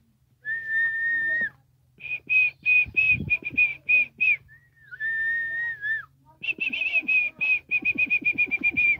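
A person whistling: a held note of about a second, then a run of short, quick whistles, the pattern given twice, the second run faster.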